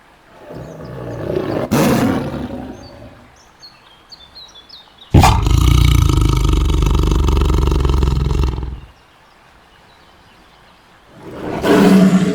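Tiger roaring three times: a roar that swells and fades in the first few seconds, a loud roar about five seconds in that starts and cuts off abruptly after some three seconds, and a shorter roar near the end. Faint bird chirps can be heard between the first two roars.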